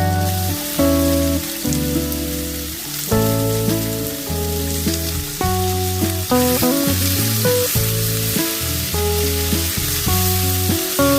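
Food sizzling and being stirred in a hot frying pan, under background music with a bass line.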